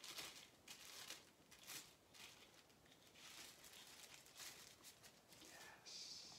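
Faint rustling and crinkling of tissue paper being pulled open from around a pair of sunglasses, a string of soft, short scratchy sounds, ending in a brief soft hiss.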